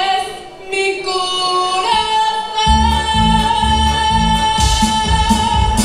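A young woman singing into a microphone over amplified music. About two seconds in she holds one long high note, and a bass beat comes in beneath it.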